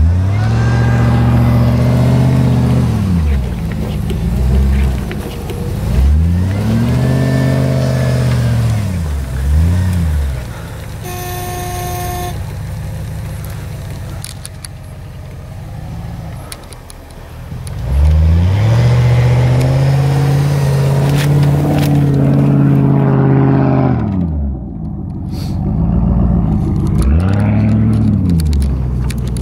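Off-road 4x4 engines revving hard in repeated bursts as they push through deep snow, the pitch rising and falling with each rev, with one long held rev past the middle. A short car-horn toot sounds about a third of the way in.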